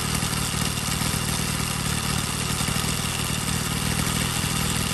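A 100cc two-stroke bicycle engine running steadily at a constant speed, driving the rear wheel through its chain.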